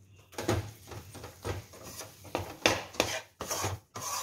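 Slotted steel spatula scraping and stirring gram flour roasting in ghee in a steel kadhai, in uneven rasping strokes about two a second, as the besan loosens on low heat.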